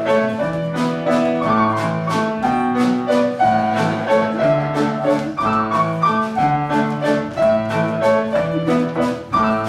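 Live theatre band of piano, bass and drums playing an instrumental dance passage with a steady beat and no singing.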